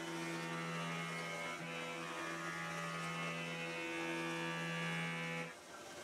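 CNC vertical milling machine spindle running with the tool cutting the part under flood coolant: a steady pitched hum with higher whining tones over it. It stops suddenly about five and a half seconds in.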